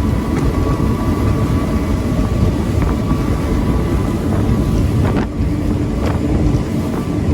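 Powerboat outboards running steadily under way, a low rumble with a faint steady whine, heavily buffeted by wind on the microphone. The boat's outboards are triple Mercury 350 hp Verado four-strokes.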